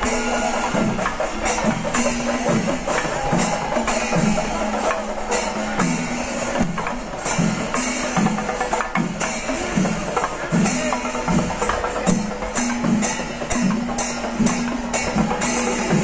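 Percussion-led music: drums with clashing cymbals keep a fast, steady rhythm, with a repeating low pitched figure underneath.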